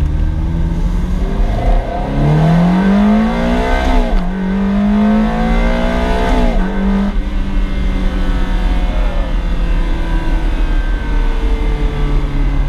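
Ferrari V8 engine accelerating hard: the revs climb twice, each pull ending in a sudden drop as the gearbox shifts up, then the engine runs on at a steadier pitch.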